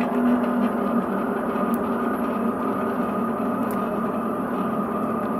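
Delta 3D printer running a high-speed print through a 1.5 mm nozzle: a steady mechanical hum of its motors, with a low tone that fades about a second in.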